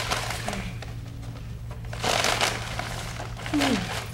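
Paper bag rustling and crinkling as it is handled, louder in two bursts, about two seconds in and near the end, over a steady low hum.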